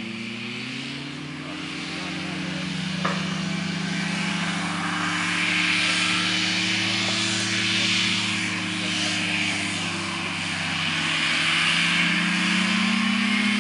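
Racing hovercraft running: a steady engine drone with the rushing of its thrust fan. The engine note dips at the start and climbs again near the end. A brief click comes about three seconds in.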